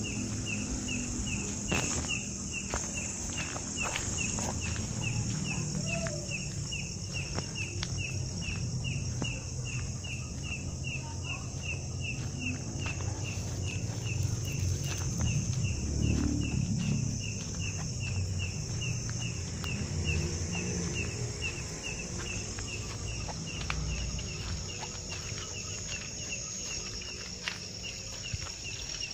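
Night insects: a cricket chirping steadily at about two chirps a second over a continuous high insect drone, with a low rumble and small clicks underneath.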